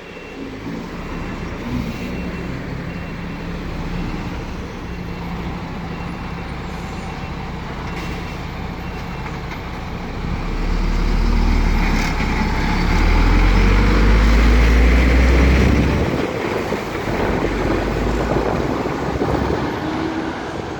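Fire truck's heavy diesel engine running in the street, swelling and rising in pitch about ten seconds in as it drives up under power, then easing off again about five seconds later.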